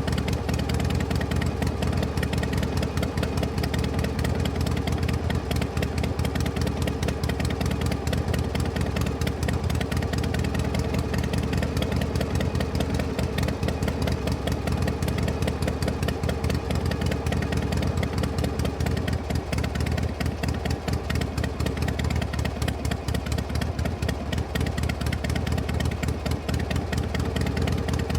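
A vehicle engine idling steadily, with a rapid, even pulse of firing strokes and no change in speed.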